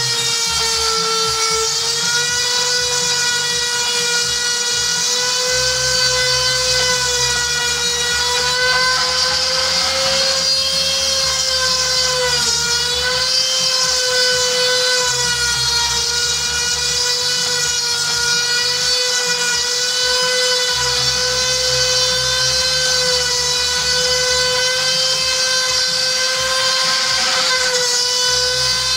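Corded rotary tool working as the spindle of a home-made milling machine, running with a steady high whine. Its pitch dips briefly a couple of times, and a lower hum comes and goes underneath.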